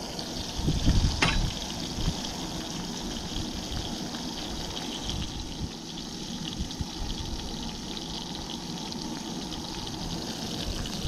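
Yellow bullhead catfish pieces frying in hot oil, a steady sizzle, with one sharp click about a second in.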